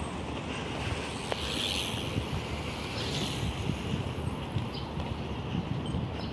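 Wind rumbling and buffeting on a handheld phone's microphone over a steady outdoor background hiss, with a brief rise in the hiss about two seconds in.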